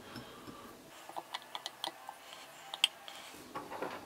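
Light clicks and taps of metal parts as the finned cylinder head of a small air compressor is fitted back onto its cylinder by hand, a quick string of them with one sharper click near three seconds in.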